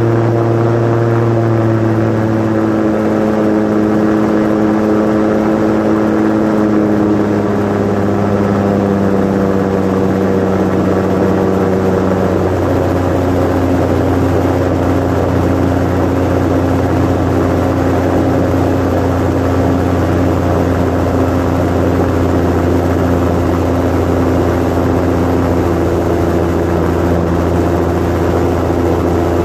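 Osprey 2 amphibious seaplane's piston engine and propeller droning steadily in cruise, heard inside the cockpit with airflow noise. The engine note eases slightly lower twice, a couple of seconds in and again about twelve seconds in.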